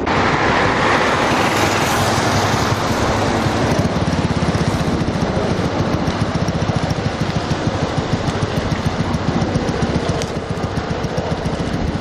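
Firefighting helicopter overhead, its rotor beating in a fast, even chop over a steady rush of engine and air noise. The chopping becomes plainer a few seconds in.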